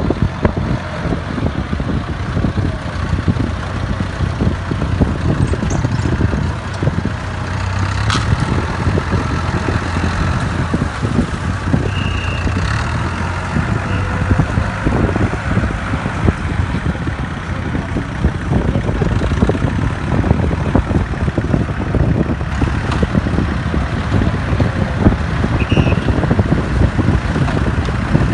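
Farm tractor engine running steadily, loud and close, with a continuous low hum.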